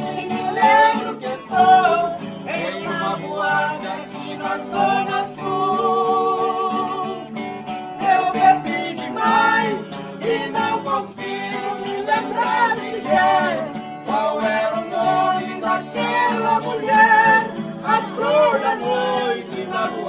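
Nylon-string acoustic guitars strummed while men sing a song together, voices wavering and gliding over the chords.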